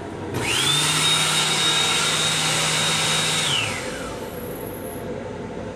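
Hand dryer in an M7 railcar restroom's wash unit running for about three seconds: a motor whine that rises quickly to a steady high pitch with rushing air, then winds down and fades.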